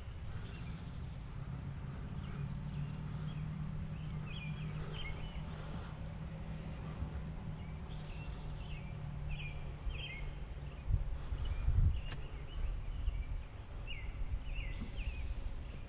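Outdoor farm ambience: small birds chirping now and then over a steady low hum, with a couple of low knocks about three-quarters of the way through.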